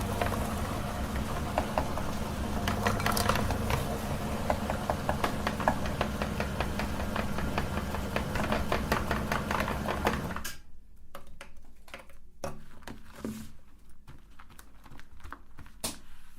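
Electric meat grinder running with a steady hum while its auger crunches chocolate sticks in a dense crackle. The motor cuts off about ten seconds in, leaving a few scattered clicks and knocks.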